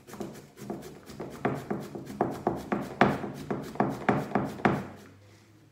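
Peeled zucchini being grated on a flat metal hand grater set in a plastic bowl: a steady run of rasping strokes, about two a second, that die away near the end.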